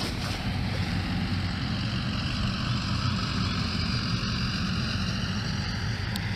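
Pickup truck driving past on the road above, its engine and tyres making a steady hum.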